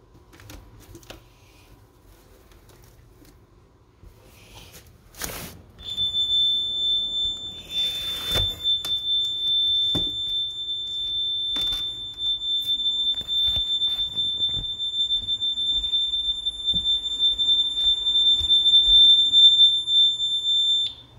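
Honeywell home alarm panel's siren sounding a steady high-pitched tone for about fifteen seconds: the burglary alarm, set off by a window sensor tripped on the armed system during a test. It cuts off suddenly near the end.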